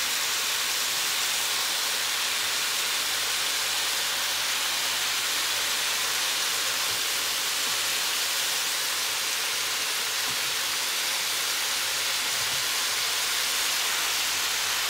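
Spinach and broccoli sizzling and steaming in a hot frying pan: a steady hiss.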